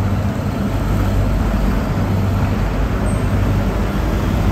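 Steady low engine hum over a constant wash of noise.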